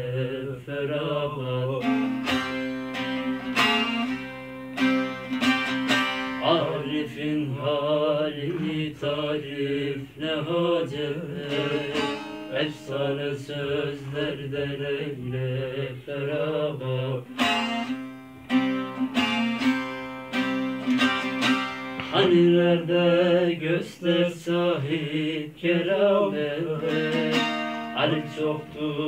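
Bağlama and a smaller cura, long-necked Turkish lutes, playing a folk melody together with quick plectrum strokes, an instrumental passage between sung verses.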